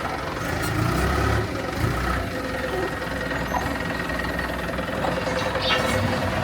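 Heavy diesel machinery engine running steadily at a low, even idle, with a few faint knocks over it.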